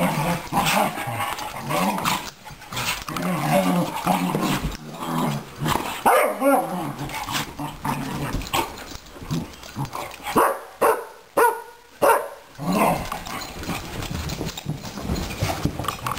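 Two dogs play-fighting: steady growling and snarling, then a run of sharp barks about ten to thirteen seconds in.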